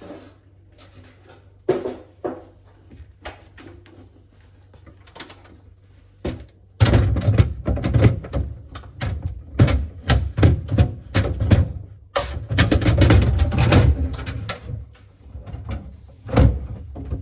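Irregular knocks, thuds and rattles of items being handled, such as shelves, containers and food going back into a refrigerator or freezer. They are sparse at first and become busier and louder about seven seconds in.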